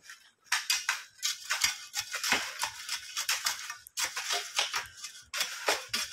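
Hand digging in soil: a metal hand tool and an iron crowbar scraping and striking the earth in a small pit. The strokes come in quick, irregular crunching runs with short pauses.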